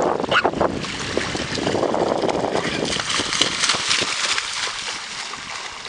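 Dog splashing and wading through shallow surf, with wind rushing over the microphone.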